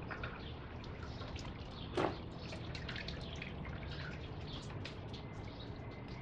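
Engine coolant dripping and trickling out of the open coolant temperature sensor port on a Chevy Impala's 2.4-litre engine, with the sensor out. The drips come irregularly, with one louder click about two seconds in.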